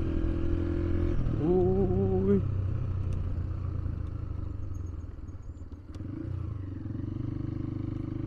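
Motorcycle engine heard from on the bike while riding: it runs steadily, revs up in pitch about a second in, drops back a second later, eases off and grows quieter in the middle, then settles back into a steady run near the end.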